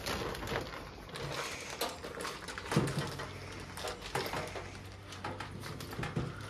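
Scrubba wash bag and wet laundry being handled: uneven rustling and small knocks, with no rhythm.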